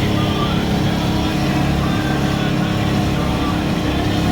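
Boat motor running steadily under way, a constant low drone over an even rush of noise.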